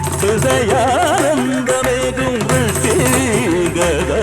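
Carnatic-style Malayalam film song: a male voice sings a heavily ornamented, winding melodic line over instrumental accompaniment, with a new sung phrase beginning about two seconds in.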